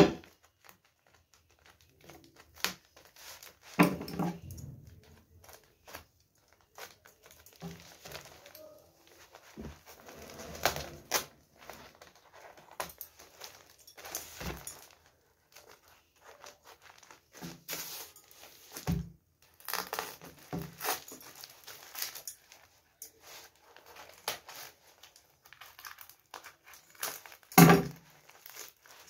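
The taped wrapping of a rolled parcel being cut with scissors and picked and torn open by hand: on-and-off crinkling and tearing of paper and packing tape, with a few louder knocks.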